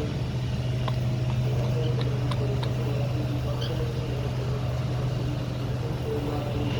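A steady low machine hum, unchanging throughout, with a few faint sharp clicks.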